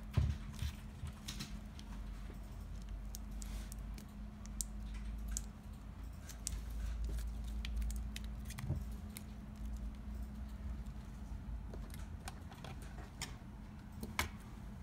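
Irregular small clicks, crackles and rustles of hands handling a roll of black self-fusing rubber tape, peeling its release liner and wrapping the tape around a pen. A sharper click comes just after the start and another near the end, over a low rumble and a faint steady hum.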